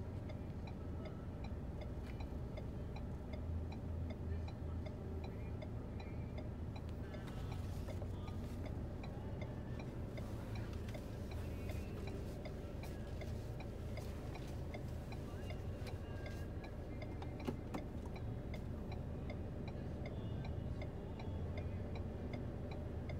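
A car's indicator clicking steadily in a regular tick-tock rhythm, heard inside the cabin over the low hum of the idling engine.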